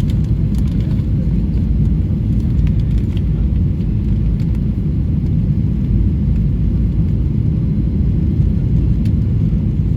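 Steady low rumble of engine and airflow noise heard inside the cabin of a Boeing 737-800 airliner, with a few faint ticks.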